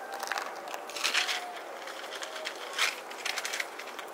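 Sheets of paper rustling and crinkling as they are handled, in a few short bursts.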